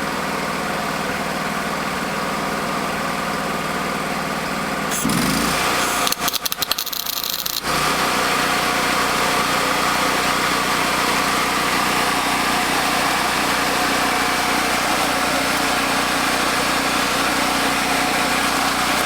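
An engine running steadily. About five seconds in its pitch rises, and the sound breaks up briefly before settling into a slightly louder, steady run.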